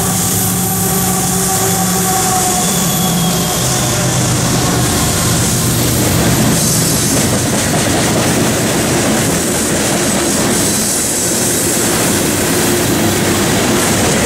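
CSX freight train passing close by: a diesel locomotive's engine drone fades over the first few seconds, leaving the steady rumble of freight cars rolling past, with clickety-clack over rail joints and some wheel squeal.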